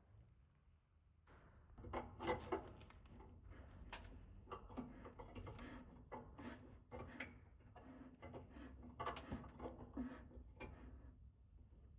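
Tools and wood being handled on a workbench: a run of light knocks, clicks and rubbing that starts about a second in.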